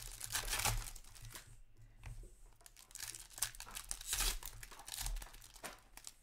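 Foil wrapper of a 2020-21 Upper Deck Allure hockey card pack being torn open and crinkled by hand: a run of irregular crackling rustles, with several louder crackles along the way.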